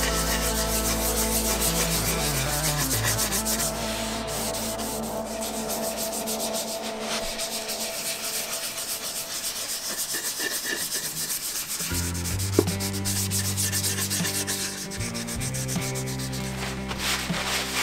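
A small green pad rubbing back and forth over the finished ebony sides of a wooden box in quick, repeated strokes, over a low music bed.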